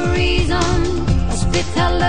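Pop music with a sung melody over a bass line and a steady beat.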